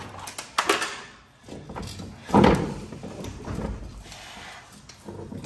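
Knocks and clunks of a new strut being pushed up into its mount, metal against the vehicle body: a few light knocks near the start and one louder clunk about two and a half seconds in.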